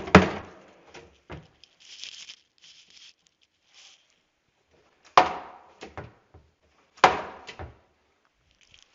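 Cabinet drawer knocking shut against its frame, three sharp knocks with a short ring: one at the start, one about five seconds in and one about seven seconds in, with light clicks and rubbing between them.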